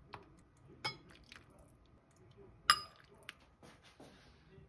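Ladling soup and handling dishes: light clinks of a metal ladle and white ceramic bowls, with a little liquid sloshing. Two of the clinks ring on, the louder one a little past halfway.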